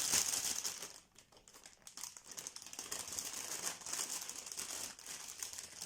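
Crinkling and light clicking of packaging being handled, dying away for a moment about a second in and then going on as scattered light clicks.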